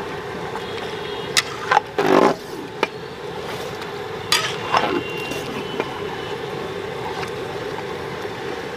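A long ladle stirring chicken korma in a large metal cooking pot: scraping and knocking against the pot, loudest about two seconds in, with a few more knocks until about six seconds in. A steady background hum runs underneath.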